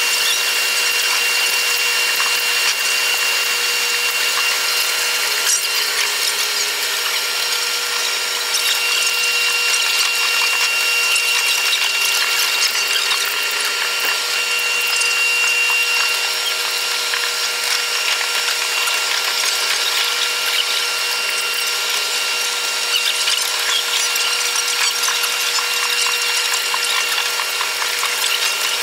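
Running noise of a Taiwan Railways EMU100 electric train played back at eight times speed: a dense, fast, high-pitched clatter with several steady whining tones over it.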